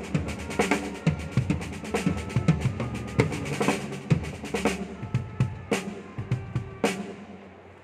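Drum kit played with bass drum, snare and cymbals in a steady groove; about five seconds in the cymbal wash drops out, a few separate hits follow, and the playing stops about seven seconds in, leaving the last hit to ring out.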